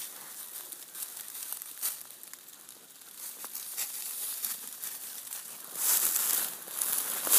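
Dry fallen leaves crackling and rustling underfoot as a dog and the person walking behind it move through the leaf litter. The crackling grows louder about six seconds in.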